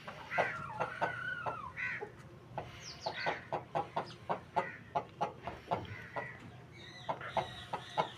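Aseel fowl clucking in a rapid run of short clucks, with drawn-out wavering calls near the start and again near the end.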